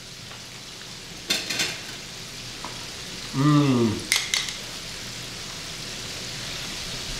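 Hot oil sizzling steadily in a frying pan, growing slightly louder. Light clinks of cutlery come about a second in and again about four seconds in, and a man gives a short hum with falling pitch in between.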